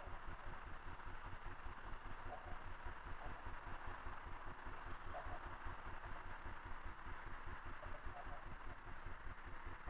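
Steady outdoor background noise of distant road traffic, with an irregular low rumble underneath and a few faint, brief sounds.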